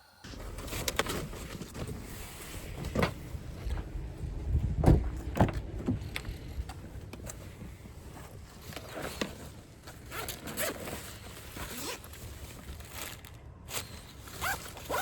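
Scattered rustling, clicks and light knocks of camping gear being handled, with zipper sounds among them.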